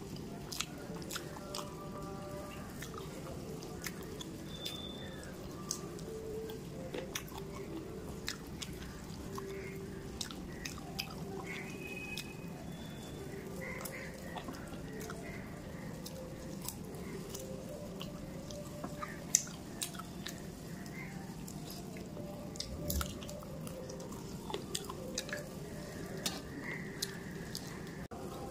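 Close-up chewing and wet mouth sounds of someone eating rice and curry by hand, with many short clicks and smacks, one louder about 19 seconds in, over a steady low hum.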